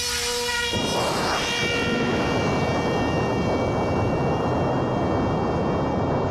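Electric RC plane's motor and propeller running at a steady high whine after spooling up. Under a second in, a loud rush of wind noise comes in and stays over the whine.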